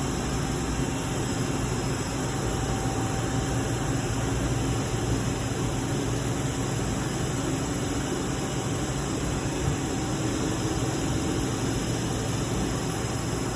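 Steady drone of machine-shop machinery: an even hiss with a low hum and a faint steady whine, unchanging throughout.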